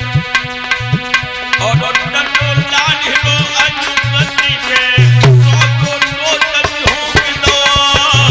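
Instrumental interlude of Indian devotional music: a tabla-style hand drum playing a fast, dense rhythm under a melody instrument holding sustained notes, with heavy low drum strokes returning about five seconds in.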